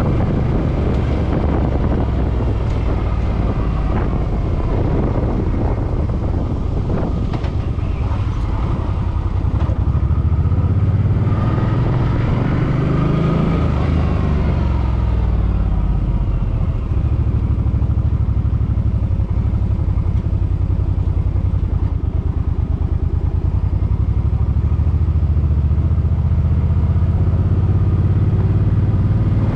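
Suzuki Boulevard M50's V-twin engine running as the motorcycle is ridden. About halfway through the pitch rises and then falls away, and it settles into a steadier, lower drone.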